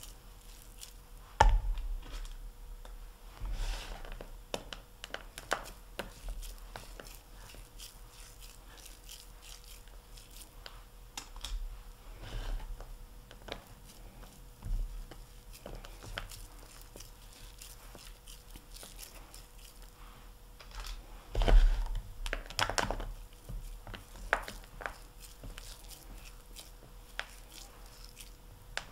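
Hands squeezing and rolling a crumbly pecan pie ball mixture in a plastic bowl: soft, scattered crunching and crackling, with louder bursts about a second and a half in and around three quarters of the way through.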